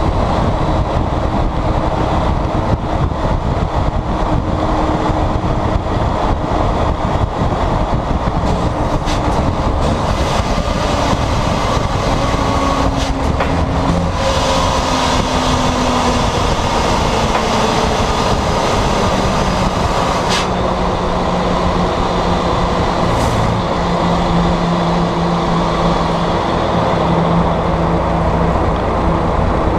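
Volvo FMX 460's 13-litre diesel engine running through a straight-piped exhaust with no silencer while the truck drives on the road, heard at the exhaust stack along with wind and road noise. The engine note changes pitch partway through and then holds steady.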